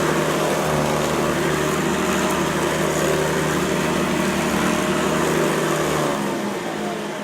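Hoover Guardsman upright vacuum cleaner running steadily on a carpet dirt test, then switched off about six seconds in, its motor whine falling as it spins down.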